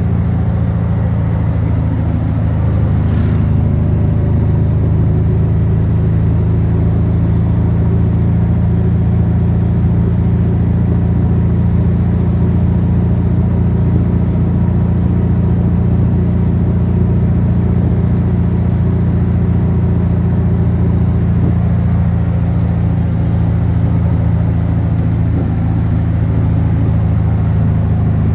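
A vehicle driving, with a steady low drone of engine and road noise that holds even throughout.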